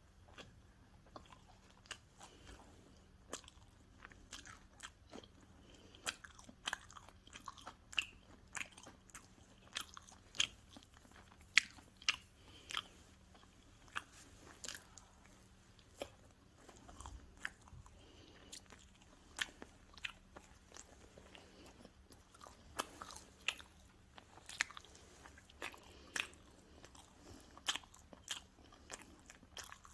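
Close-miked chewing and biting of pizza: irregular crisp crunches and wet mouth clicks, several a second at the busiest moments.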